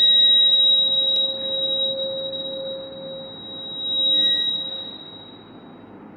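Microphone feedback through the stage PA: a loud, steady high-pitched ringing tone with a weaker lower tone beneath it, dipping about three seconds in, swelling again around four seconds and then fading away.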